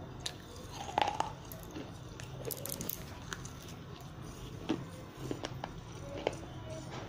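Biting and crunching pieces of baked terracotta clay from a broken diya in the mouth: irregular sharp cracks and crunches, the loudest about a second in.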